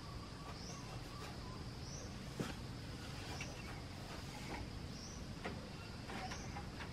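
Steady high-pitched insect drone with a short rising chirp repeating every second or so. Scattered knocks and clicks from a plastic mesh crate being handled, the sharpest about two and a half seconds in.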